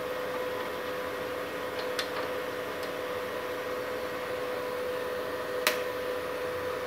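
Steady hum of a powered-up MultiPro inverter welder idling, its cooling fan running with a constant whine. A few light clicks and one sharper click near the end as the machine and its cables are handled.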